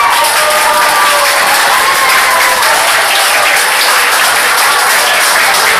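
Audience applauding steadily, a dense patter of many hands, with a few voices calling out over it in the first couple of seconds.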